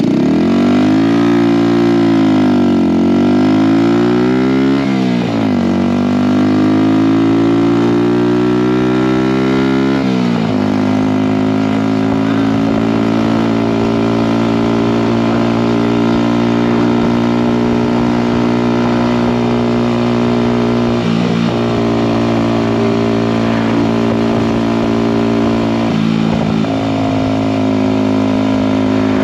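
2019 Kawasaki Z125's 125cc single-cylinder four-stroke engine through a Delkevic aftermarket exhaust, under way: the revs dip and then climb, with the pitch dropping at gear changes about five and ten seconds in. It then settles to a steady cruising note, easing off slightly twice near the end.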